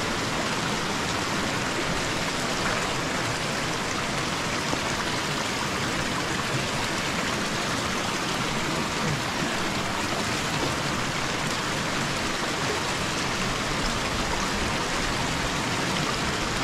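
Steady rushing of a shallow, stony river flowing past.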